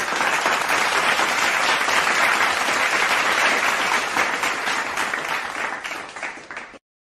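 Recorded applause sound effect played back: dense crowd clapping that fades out near the end and stops just before a second effect.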